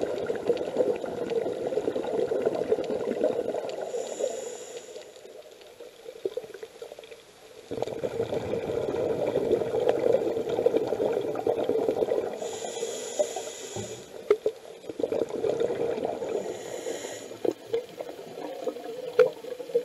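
Scuba diver breathing through a regulator underwater: long bubbling exhalations, each followed by a short hiss of inhalation, three breaths in all.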